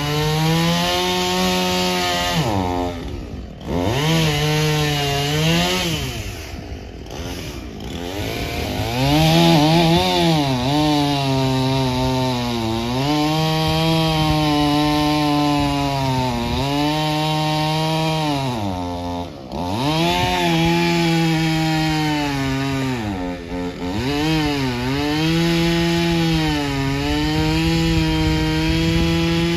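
Two-stroke chainsaw cutting through tree wood at high revs, its engine pitch sagging as the chain bites into the cut and climbing again when it frees up. It drops back nearly to idle several times, then revs up again.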